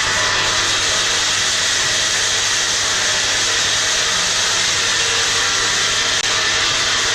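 Electric machine running steadily: an even rushing hiss like a blower or fan, over a low motor hum.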